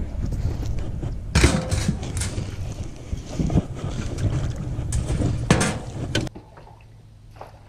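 Wind buffeting a chest-mounted action camera's microphone as a hooked bass is played and netted beside a dock, with several sharp hits and splashes over it. The noise drops off suddenly a little after six seconds.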